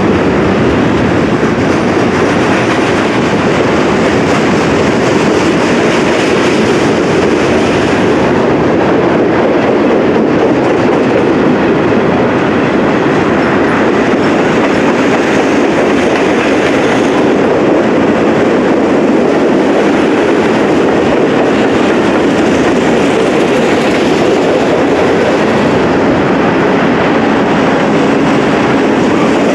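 Freight cars of a long train rolling past at close range, a steady loud rumble of wheels on rail with clicking over the joints.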